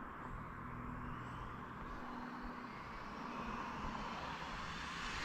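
Arrma Vendetta RC car's stock brushless motor and drivetrain whining at full throttle on a single 4S pack, a motor not really rated for 4S. The whine rises steadily in pitch and grows louder as the car accelerates on its speed run.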